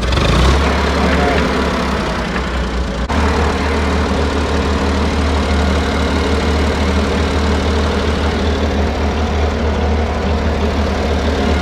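David Brown 4600 tractor engine running steadily, its low, even note shifting slightly about three seconds in.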